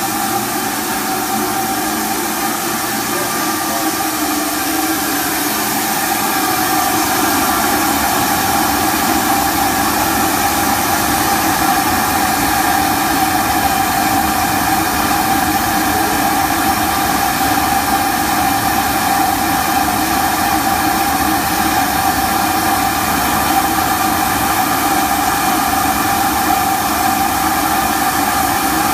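Steady hum of an industrial machine running, made of several steady tones over a hiss, getting a little louder about six seconds in.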